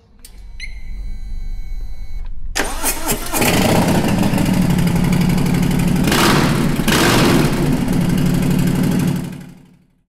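Produced logo sting: a high ringing chime over a low rumble, then an engine starting and running loudly, fading out near the end.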